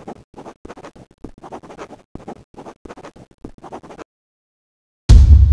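Pen scratching across paper in many quick short strokes, like handwriting, stopping about four seconds in. Near the end comes a sudden, short, very loud deep boom.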